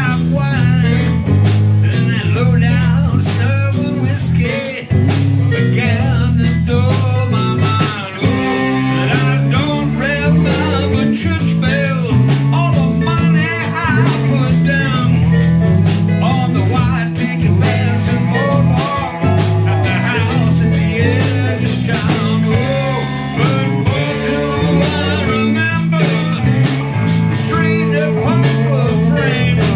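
Live bar band playing a blues-rock groove on electric guitars, electric bass and drum kit, with a steady beat and a strong bass line.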